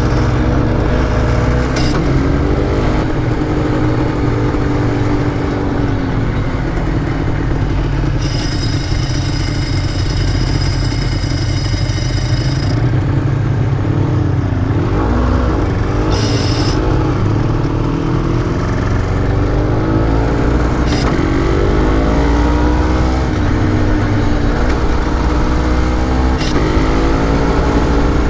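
Honda NSR250's two-stroke V-twin engine running under a rider, its pitch rising and falling repeatedly as it revs up and eases off. A high whine sounds for a few seconds about a third of the way in.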